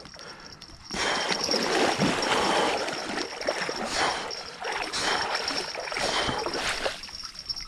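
Water splashing and churning in irregular bursts as a large hooked wels catfish thrashes at the surface while being landed.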